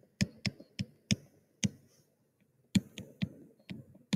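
Stylus pen tapping and clicking on a tablet screen while handwriting: a dozen or so short, sharp taps at an irregular pace, with a pause of about a second in the middle.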